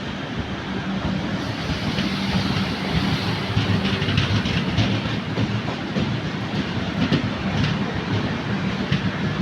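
Passenger train running past on the track, its wheels clattering over the rail joints in a rapid, irregular run of clicks over a steady rumble.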